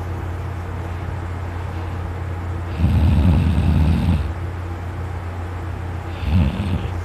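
A man snoring loudly in his sleep: one long snore lasting about a second and a half a little under halfway in, and a shorter one near the end, over a steady low hum.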